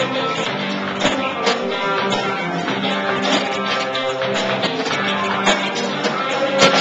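A live band playing, led by a strummed guitar over held notes and steady rhythmic hits.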